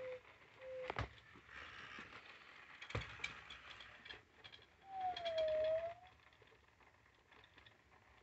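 Sony AIBO ERS-311/312 robot dogs moving: servo motors whirring and their plastic parts knocking twice on a hardwood floor, with short electronic beeps near the start. About five seconds in, one electronic tone glides down and back up.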